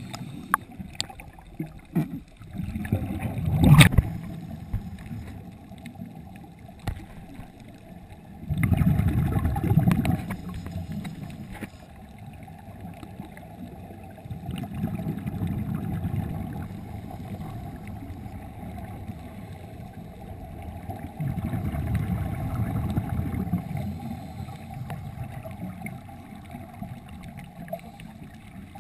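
Scuba divers breathing underwater, heard muffled through a GoPro's waterproof housing. Exhaled regulator bubbles come as bubbling bursts about every six seconds, over a steady low underwater background, with a sharp click about four seconds in.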